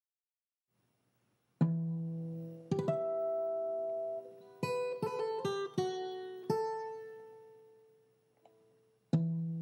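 Background music on acoustic guitar. It starts about a second and a half in with a ringing strummed chord, then a second chord, a quick run of picked notes that dies away, and another strum near the end.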